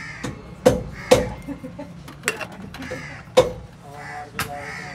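Sharp metallic knocks, about five, irregularly spaced, each with a short ring, over a steady low workshop background.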